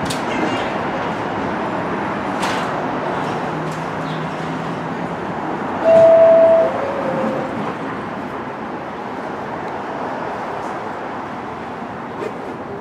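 NYC Subway R62/R62A train running at the station with a steady rumble and a few sharp wheel clicks. About six seconds in there is a loud, short, pure high tone, followed by a quieter, slightly lower tone.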